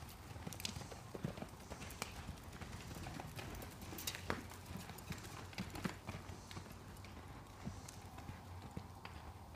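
Hoofbeats of a horse galloping on soft arena dirt and turning around barrels: irregular dull thuds and scuffs.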